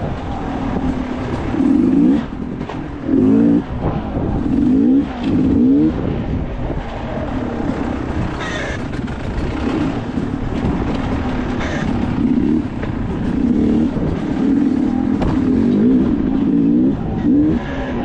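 An engine revving up and down in repeated surges every second or two over a steady rumble, like a motor vehicle being worked along a rough trail.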